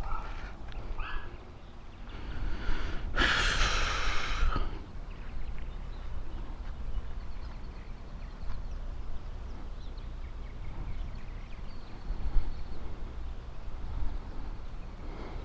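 Strong wind buffeting the microphone, a steady low rumble. About three seconds in there is a brief, louder hissing whir lasting over a second.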